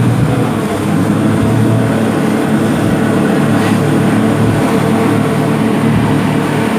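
Motorboat engine running steadily under way, with a continuous rushing noise over it.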